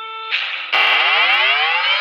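A civil-defence siren. A steady held tone breaks off about a third of a second in. Then a siren starts abruptly at a low pitch and winds up, its pitch rising steadily.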